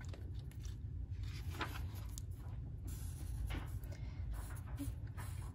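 Black felt-tip marker stroking across paper in a few short, faint strokes, over a steady low background hum.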